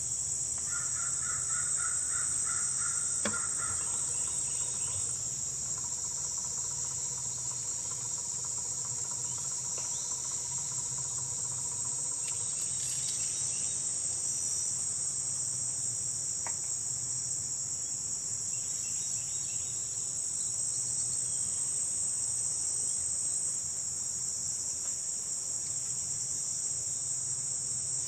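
Steady high-pitched chorus of crickets and other insects, with a few short bird calls in the first few seconds and a single click about three seconds in.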